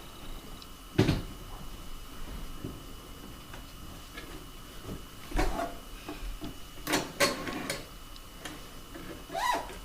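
Dishes and dishwasher racks being handled: a series of separate knocks and clinks, the loudest about a second in and two close together around seven seconds.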